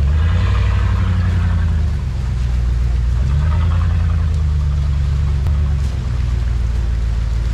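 Off-road 4x4's engine running under load, its pitch rising and falling in two surges as it is revved.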